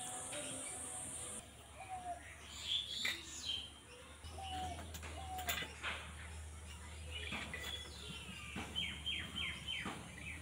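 Birds chirping and calling with short repeated whistled chirps, then a quick run of about four falling notes near the end. A few faint clicks come in between.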